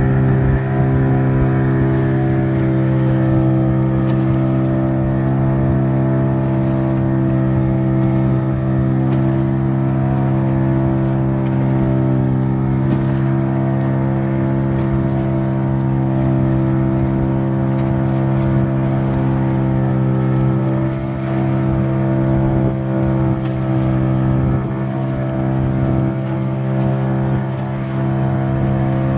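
Outboard motor of a wooden pirogue running at a steady cruising speed, a constant engine drone, with wind buffeting the microphone.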